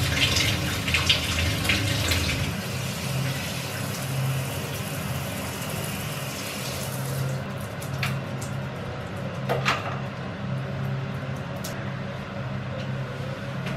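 Handheld shower head spraying water onto a leg and into a bathtub, the spray hissing steadily until it is shut off about halfway through. After that come a few sharp clicks and knocks, with a low hum underneath.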